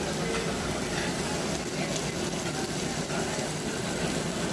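Steady background noise of a busy buffet restaurant, with faint indistinct voices in it.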